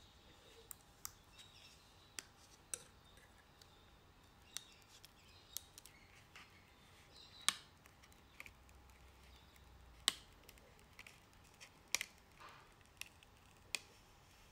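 Weeding cut red glitter vinyl with a hook tool: scattered sharp clicks and ticks as the tool picks and lifts the vinyl, the loudest about halfway and near the end, with faint crinkling as the waste vinyl is lifted and peeled away.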